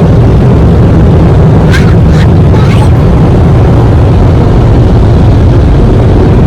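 Automatic car wash machinery running: a steady, loud low roar, with a few brief higher sounds about two seconds in.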